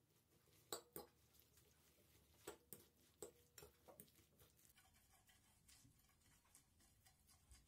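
Metal fork clinking against a glass mixing bowl while stirring a chunky mix of egg, grated cheese and chopped vegetables: about eight sharp clinks over the first four seconds, the loudest a pair about a second in, then only faint scraping.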